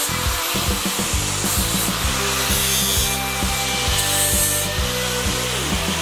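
Angle grinder with an abrasive disc grinding down a steel workpiece, in several short passes of hissing grinding, over background music with a steady beat.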